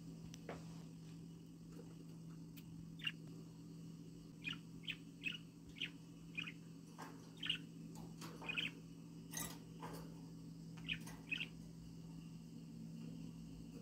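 Pet budgerigars chirping softly: about a dozen short chirps, most of them coming close together in the middle, over a steady low hum.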